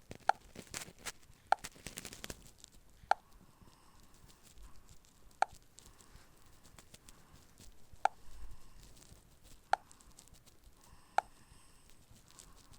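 Seven short, sharp plinks, each with a brief pitched ring, spaced unevenly one to three seconds apart, from a Fly FS458 Stratus 7 mobile phone.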